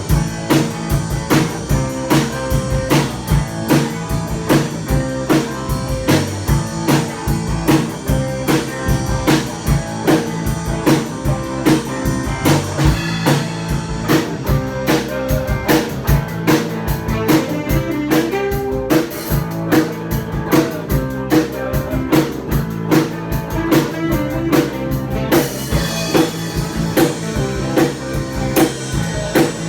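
A band playing a take of a song: guitar and bass over a drum kit keeping a steady beat of about two strokes a second.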